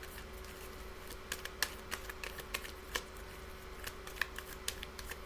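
A deck of reading cards being shuffled by hand, heard as light, irregular clicks and flicks a few times a second over a faint steady hum.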